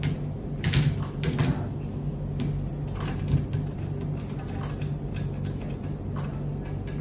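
Metal clicks and knocks from handling a golf club loft and lie machine's clamp and bending bar as it is set up to bend the club's loft, irregular and busiest in the first second and a half, over a steady low hum.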